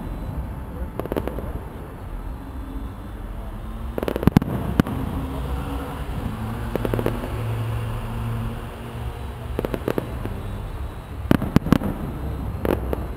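Fireworks display heard from a distance: aerial shells bursting in quick clusters of sharp bangs, about four seconds in, around the middle, and twice more near the end, with a low rumble between them.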